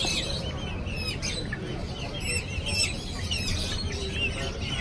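Caged young birds, quail and chicken chicks, cheeping: many short high chirps overlapping one another over a low steady background rumble.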